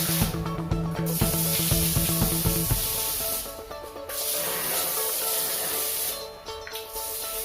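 Water spraying under pump pressure as a steady hiss that cuts out briefly three times, over background music.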